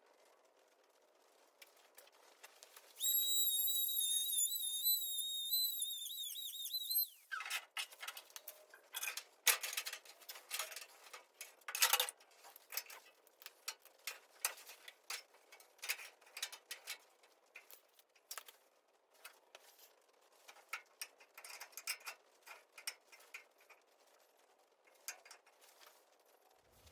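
A power tool's high-pitched whine for about four seconds that rises briefly just before it cuts off, followed by a long run of scattered light metallic clicks and taps.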